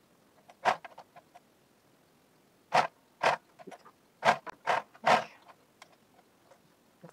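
Short, sharp rustles and clicks from lace fabric being handled and pulled at a sewing machine: one burst about half a second in, then five more bunched between about three and five seconds in.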